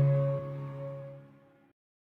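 Background music ending on a held chord that fades out, then cuts to dead silence about a second and a half in.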